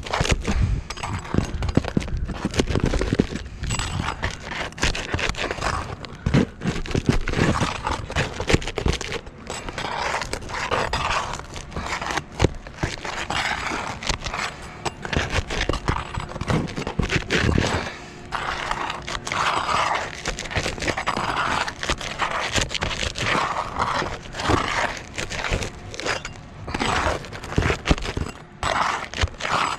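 Steel shingle removal bar (snake bar) scraping and prying under roof shingles to loosen them, a long irregular run of scrapes, crackles and small knocks.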